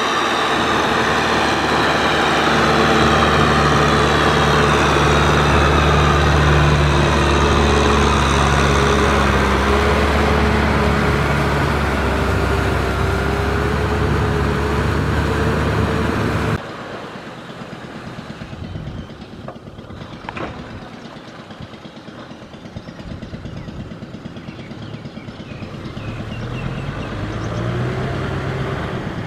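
Kubota M6040SU tractor's diesel engine running steadily under load while its rotary tiller works through flooded paddy mud. A little past halfway the sound drops suddenly to a quieter, more distant engine, which rises in pitch near the end.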